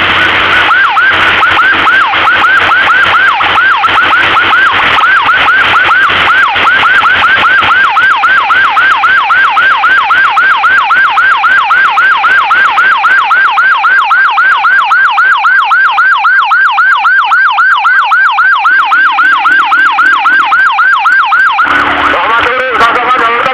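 Electronic emergency siren in rapid yelp mode, sweeping up and down about four times a second. Near the end it switches to a different siren tone.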